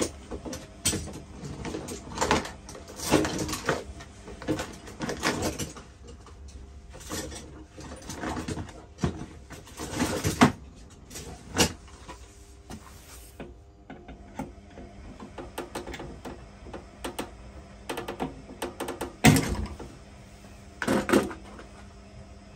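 Plastic sink waste trap and pipe fittings being handled and worked with hand tools: irregular clicks, knocks and scrapes, busiest in the first few seconds, with two sharp knocks near the end.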